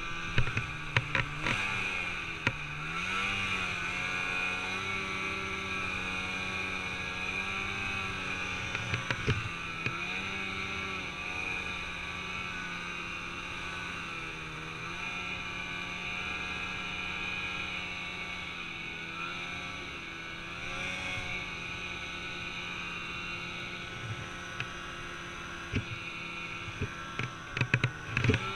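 Snowmobile engine running under load in deep powder, its pitch rising and falling as the throttle is worked. A few sharp knocks come about a second in, around nine seconds and several times near the end.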